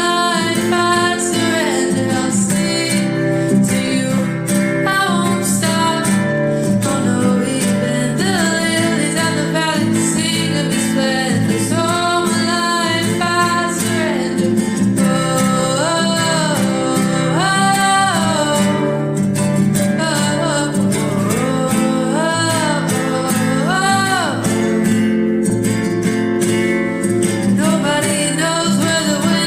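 Song with acoustic guitar accompaniment and a sung melody: a worship song.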